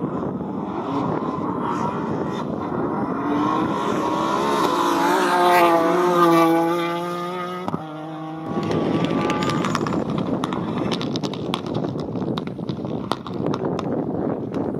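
Rally cars at full throttle on a tarmac stage. One engine rises in pitch and is loudest about halfway through, then its pitch falls. After an abrupt cut, another car runs hard with many sharp crackles.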